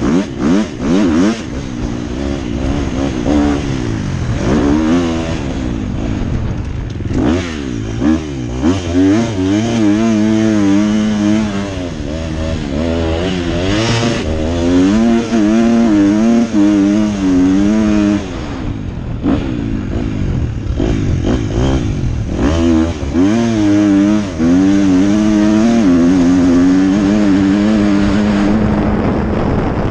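KTM motocross bike's engine being ridden hard, its pitch repeatedly climbing and dropping as the throttle is opened and closed through the turns and gear changes. Short knocks from the bike over bumps come in the first few seconds.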